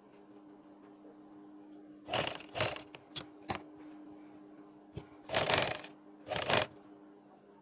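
Sewing machine stitching in a few short runs, each under a second, with single clicks in between, over a faint steady hum.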